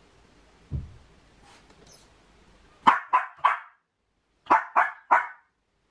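A miniature pinscher barking at a closed door in two runs of three sharp barks, after a dull thump about a second in. The owner takes this barking when the dog is left home alone for separation anxiety.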